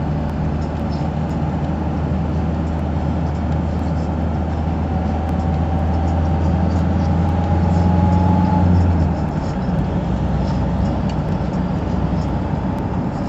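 Car engine and tyre noise heard from inside the cabin while driving, the engine note rising slowly as the car gains speed, then dropping about nine seconds in as the throttle eases or the gear changes.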